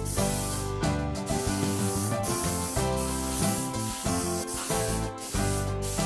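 Hiss of a compressed-air paint spray gun spraying a metal axle casing, under background music with a steady beat.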